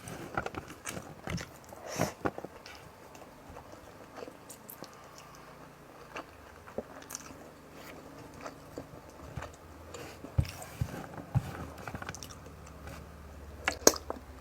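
Close-up mouth sounds of a person eating: chewing and biting with irregular wet clicks and smacks.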